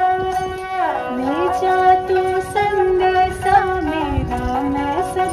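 Ringtone music: a melody that slides down in pitch and back up, twice, over a steady held drone note.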